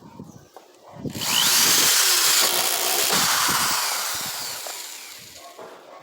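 A power tool starts about a second in, runs at full speed for about two seconds, then winds down gradually over the next few seconds. A few light handling knocks come before it.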